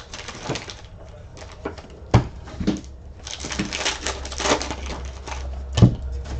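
Trading card packs and cards being handled: rustling and crinkling of wrappers and card stock with light clicks, and two sharp thumps, about two seconds in and near the end.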